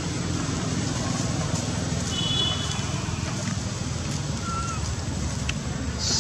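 Steady low outdoor background rumble, with a faint short high chirp about two seconds in.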